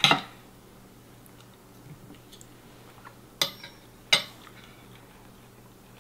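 Metal fork clinking sharply against a plate twice, about three and a half and four seconds in, with faint light taps of cutlery in between.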